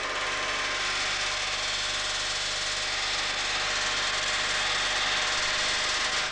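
Pneumatic riveting hammer driving a red-hot steel rivet against a dolly to close its head: a loud, fast, continuous stream of blows that stops abruptly near the end.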